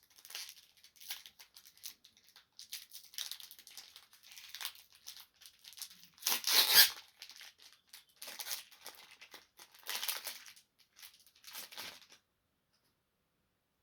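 Foil Pokémon booster pack wrapper being torn open and crinkled, in an uneven run of rustles and tears, the loudest about halfway through. It stops a little before the end.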